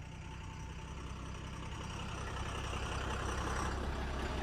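Heavy diesel engine running steadily with a low rumble, growing gradually louder.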